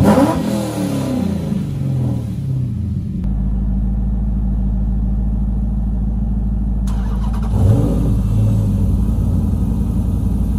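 A car engine revving, its pitch sweeping up and down, then settling into a steady idle, with another short rev about three quarters of the way through.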